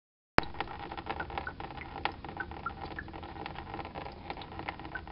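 Antifreeze draining from the car's cooling system, splashing and pattering into a plastic drain pan, with many small drips plinking. It starts suddenly about half a second in.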